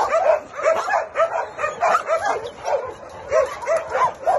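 Many dogs barking and yipping at once in their kennels, a dense overlapping chorus of barks at different pitches, several a second without a break.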